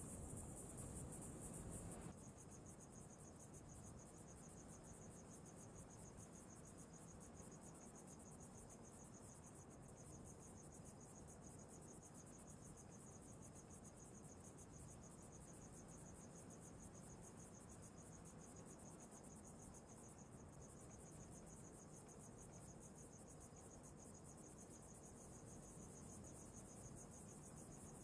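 Faint, steady high-pitched chirring of crickets over a low background hiss, a little louder for the first two seconds.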